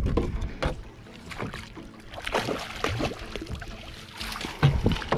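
Water splashing and dripping around a landing net swished and lifted at the side of a small boat, with short knocks and splashes against the hull over a low rumble.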